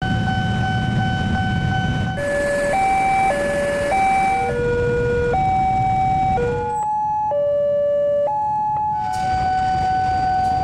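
Electronic railroad crossing warning alarms: steady pitched tones that mostly alternate between two notes about every half second to a second. The pitches and background change abruptly several times as the sound cuts between different crossings.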